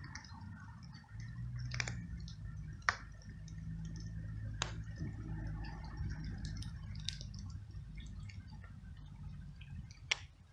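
Domestic tabby cat chewing dry kibble: scattered small crunches and about five sharper clicks, over a low steady rumble.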